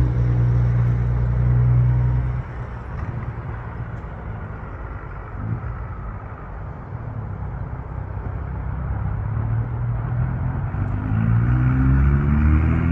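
Road vehicle engine running: a steady low hum for the first couple of seconds that then drops away, and near the end another engine grows louder and rises in pitch.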